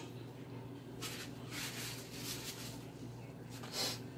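A steady low hum with a few soft, brief rustling noises: about a second in, a longer stretch in the middle, and once near the end.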